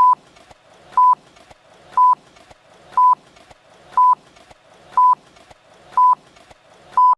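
Film-leader countdown beeps: a short, single-pitched tone once a second, eight in all, with a faint crackly hiss between them.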